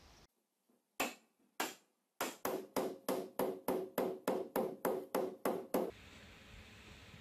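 Hammer blows: two single strikes, then a fast even run of about a dozen more at roughly four a second, with a ringing note sounding under the later blows.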